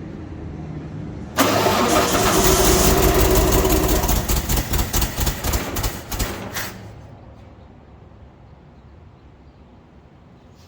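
Grimmer-Schmidt air compressor's 302 cubic inch Ford V8, four cylinders making power and four making air, being started after months idle: it catches suddenly about a second and a half in and runs loudly for about five seconds, turning uneven and pulsing near the end before it dies away.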